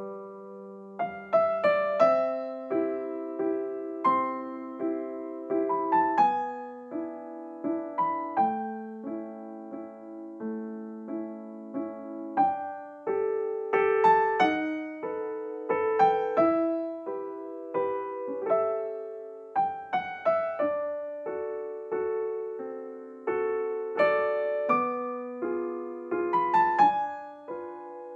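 Background piano music: a slow, gentle melody of struck notes, each ringing out and fading.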